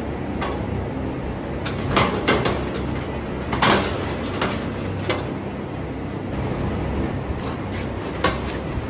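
Irregular metal knocks and rattles from a steel cattle crush, the loudest about two and three and a half seconds in, over a steady low rumble.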